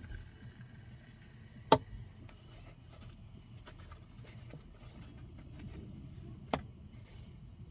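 Soft drink poured from a can into a glass, with faint fizzing ticks, and a sharp knock a little under two seconds in as the can is set down on the table. Near the end a foam takeout box is opened, with a lighter click of its lid.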